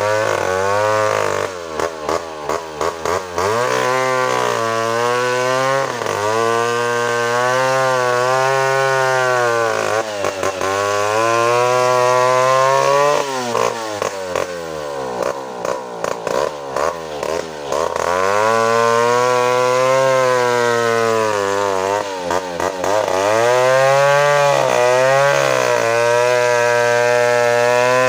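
Two-stroke chainsaw cutting a coconut palm trunk, its engine pitch sagging under load and climbing again over and over. It has spells of uneven, stuttering revs, about two seconds in and again around the middle.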